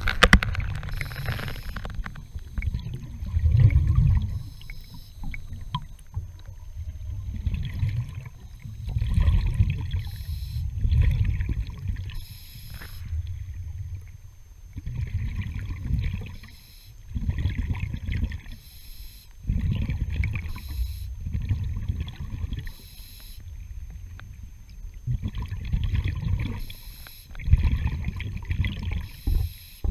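Scuba diver breathing through a regulator, heard underwater. A short hiss on each inhalation alternates with a low bubbling surge of exhaled air, about one breath every four to five seconds.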